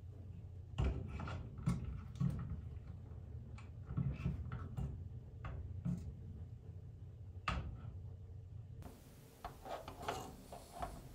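Scattered light clicks and knocks from the fibre laser etcher's metal head unit and thumb screw being handled and wiggled into place on its vertical column, over a low steady hum.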